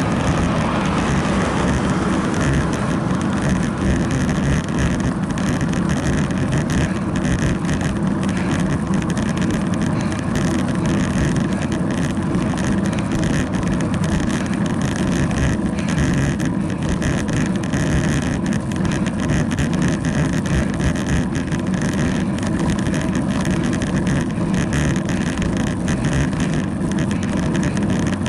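Steady rumble and rush of wind and tyre vibration on asphalt, picked up by a bicycle-mounted action camera while riding.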